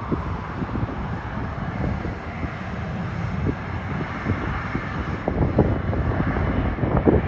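Airliner engines running steadily with a broad rush. Gusts of wind buffet the phone's microphone in the last couple of seconds.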